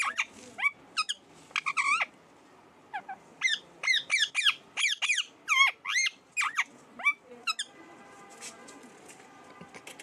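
Rose-ringed parakeet giving a rapid string of short, shrill chirps and squeaks, each sweeping in pitch. The calls stop about two and a half seconds before the end.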